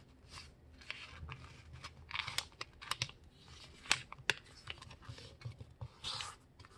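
A sheet of printer paper being folded and creased by hand: soft rustling and sliding of paper, with short sharp crackles as folds are pressed flat, the loudest two snaps close together about four seconds in.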